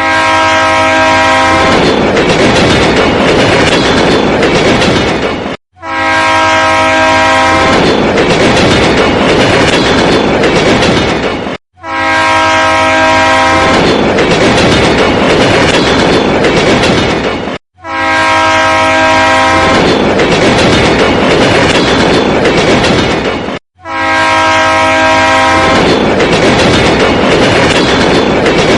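Train horn blaring over the rumble and clickety-clack of a moving train. A clip of about six seconds is looped with a short silent gap, so the horn blast starts each repeat about five times over.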